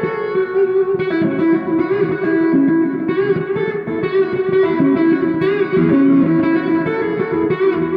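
Electric guitar played solo: a lead line of single notes changing in quick succession.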